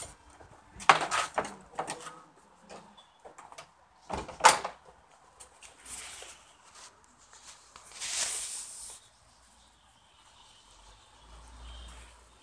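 Rabbits eating grass and dandelions close up: clicks and rustling of the greenery, with two loud knocks about one and four and a half seconds in and a longer rustle near eight seconds.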